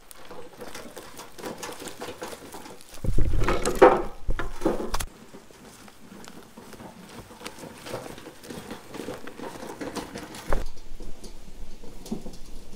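Loaded wheelbarrow of split firewood being pushed over grass, the logs knocking and clattering in the metal tray. About three seconds in there is a louder stretch of a couple of seconds with a deep rumble.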